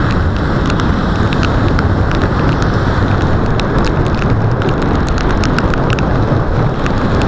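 Rain and wind noise on a bicycle helmet camera's microphone while riding on a wet road: a steady low rumble and hiss, with scattered sharp ticks of raindrops hitting the camera.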